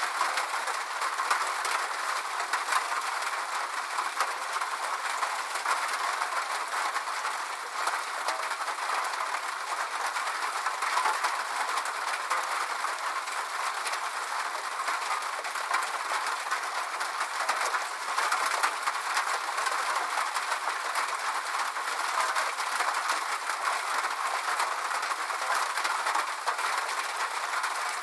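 Rain pattering steadily on a sheet-metal roof, a dense crackle of countless small drop impacts.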